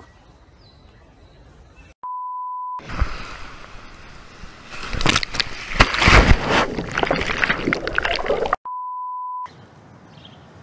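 An electronic beep, a steady 1 kHz tone lasting under a second, comes about two seconds in. It is followed by about six seconds of loud crackling noise full of knocks, and then the same beep sounds again.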